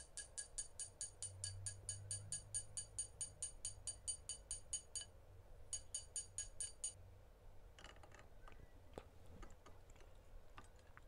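Rapid, even mallet taps on a silver ring over a steel ring triblet, each tap ringing brightly, about five a second, then a brief pause and a few more: the ring is being tapped out to a slightly larger size. Faint clicks and scraping follow near the end.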